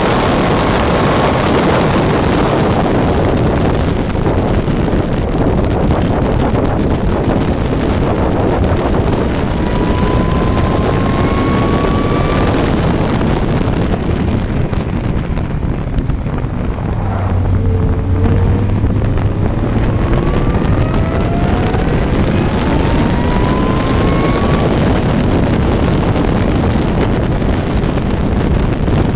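Race vehicle heard from onboard at speed: heavy wind buffeting on the microphone over an engine pulling up through the gears, rising in pitch in steps. About halfway through it eases off, drops in pitch and settles low for a few seconds, then pulls up through the gears again.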